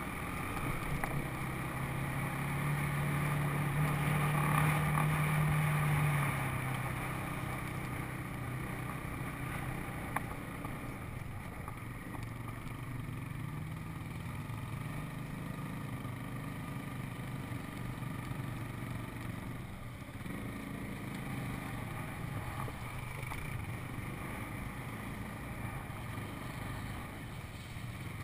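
Four-wheeler (ATV) engine running while riding a dirt trail, louder for a few seconds near the start, then settling to a steadier, lower drone.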